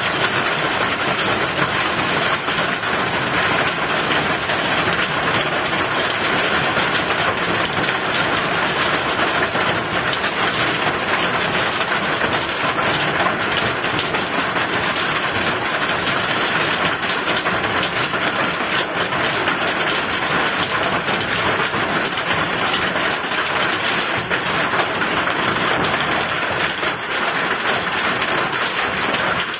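Hail falling steadily and heavily: a dense, unbroken patter of small hailstones striking the ground and surroundings.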